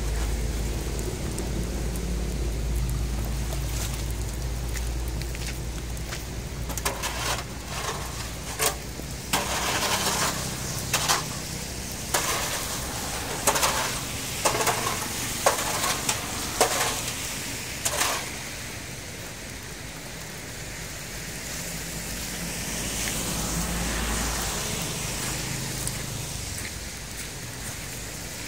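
Muddy rainwater rushing out of a culvert along a gravel ditch, with a hoe scraping and knocking at trash in the culvert mouth in a quick run of sharp strokes from about a quarter of the way in until just past halfway.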